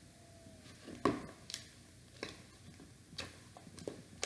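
A spoon clicking and tapping against a bowl as fluffy slime is stirred: scattered sharp clicks, the loudest about a second in.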